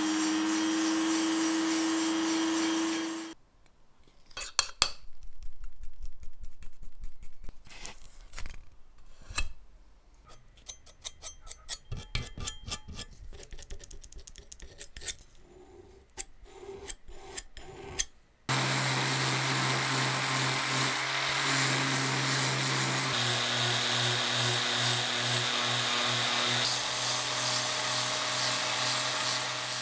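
A rotary tool grinding metal with a steady whine, which stops about three seconds in. Then a putty knife scrapes and taps in short, uneven strokes as body filler is spread on a metal ring. Past the halfway mark an electric detail sander starts and runs steadily, sanding the filler down.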